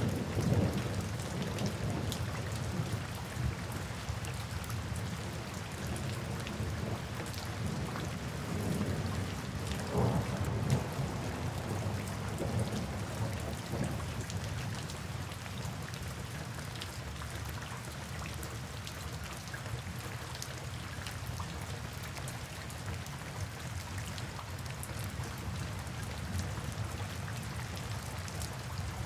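Steady rain falling, its patter even throughout. Low thunder rumbles fade out in the first second, and a brief rumble comes again about ten seconds in.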